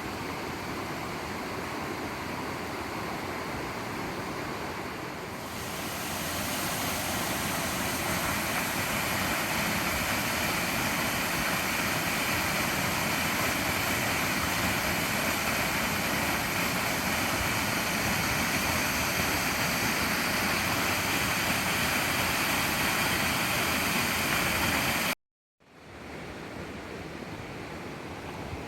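Waterfall, a steady rush of falling water that grows louder about five seconds in. It breaks off for a moment near the end and comes back quieter.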